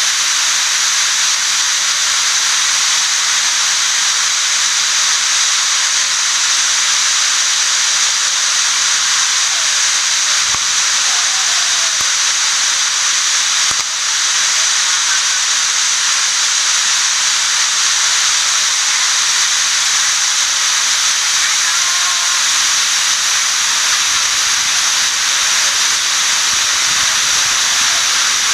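Shiraito Falls: the steady rush of a waterfall, a dense, unchanging hiss of falling water.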